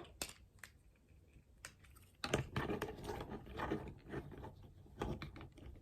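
Plastic parts of a Transformers action figure clicking and rattling as they are handled and moved into position: a few single clicks, then a busier run of small clicks and rubbing from about two seconds in.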